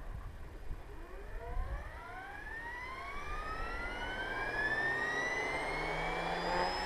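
Radio-controlled model helicopter spooling up: the motor and rotor whine rises steadily in pitch and grows louder. It is a test run to check whether the rotor still vibrates after the blade tracking was adjusted.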